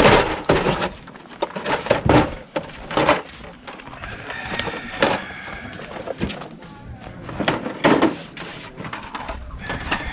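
Irregular knocks and thuds at a busy cookout, with music playing in the background.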